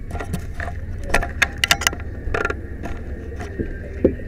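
Firefighter's turnout gear and breathing apparatus clinking and rattling, with a quick string of sharp clicks and knocks in the first couple of seconds and another knock near the end, over a steady low rumble of engine noise.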